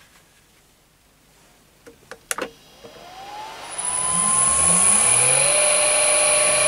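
A few clicks of the XSY-AT1 variable frequency drive's keypad, then the 1 HP three-phase induction motor it drives starts from standstill and ramps up with a rising whine, settling into a steady run at 50 Hz with no load and a high steady whine over it.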